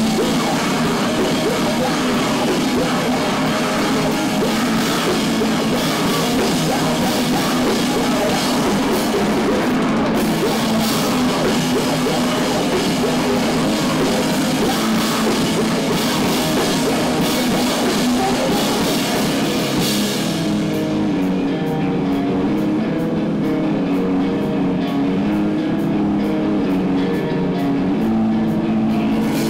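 Live rock band playing loud and heavy, with electric guitars and a drum kit crashing on cymbals. About twenty seconds in the cymbal wash drops away, leaving the guitars over a lighter, steady beat.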